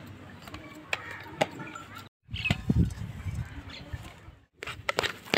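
Scattered light clicks and knocks of kitchen utensils and bowls being handled, with a few faint bird chirps.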